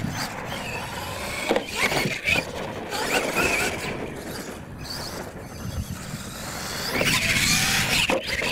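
Radio-controlled monster truck driving on a dirt track, its motor and drivetrain whining up and down in pitch with the throttle, with tyres scrabbling on loose dirt. It gets louder near the end as the truck comes close.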